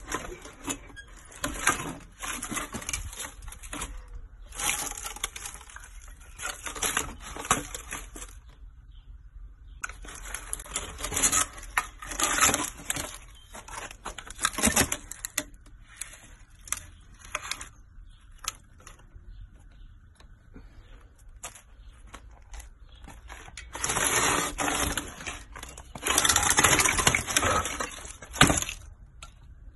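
Broken BMC carbon road bike frame rattling and crackling as it is handled and shaken, in several bursts of a few seconds each with scattered clicks between; the carbon frame is shattered after a crash.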